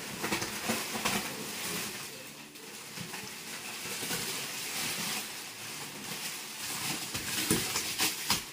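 Thin plastic wrapping on a memory foam mattress crinkling and rustling as it is pulled and handled, a continuous crackle with sharper crackles near the end.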